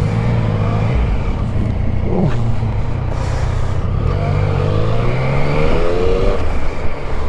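Yamaha Tracer 900's three-cylinder engine running under way with wind rush. Its pitch rises steadily from about four seconds in as the bike accelerates.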